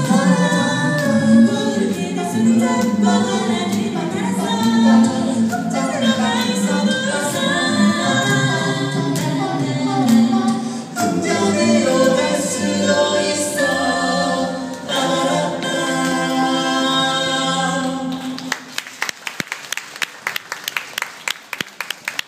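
A four-voice mixed a cappella group (two men, two women) singing in close harmony over a sung bass line, ending the song about eighteen seconds in. Then scattered hand-clapping from the audience.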